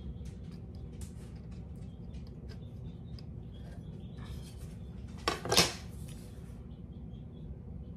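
A kitchen knife cutting pastry dough on a countertop, with light clicks and taps of the blade. About five seconds in comes a louder double clatter as the wooden ruler is lifted and set aside.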